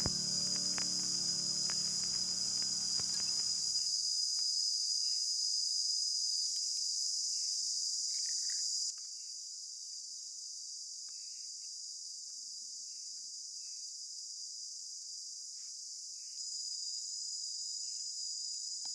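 A steady, high-pitched chorus of insects trilling, which drops in level about halfway through and rises again near the end. Light guitar music fades out in the first few seconds, and faint scrapes and taps come from a spoon stirring chicken in a plastic tub.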